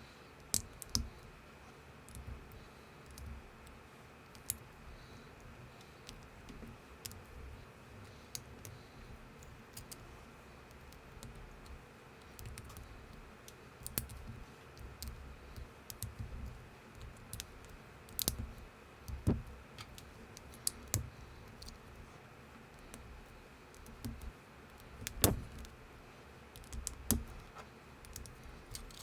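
LEGO-compatible plastic bricks being handled and snapped together by hand: scattered, irregular clicks with a few louder snaps, the loudest about 25 seconds in.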